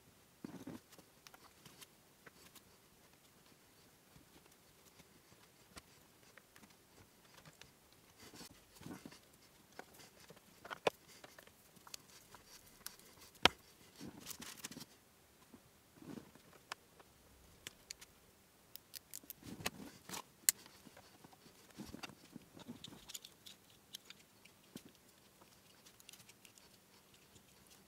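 Wires and plastic connectors being handled in a car's wiring harness under the dashboard: scattered faint rustles and taps, with a few sharper plastic clicks, the loudest about halfway through.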